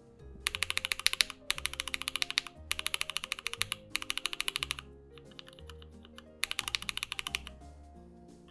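Mechanical keyboard switches clacking in fast runs of about ten presses a second, each run lasting about a second, with a softer run in the middle, over background music.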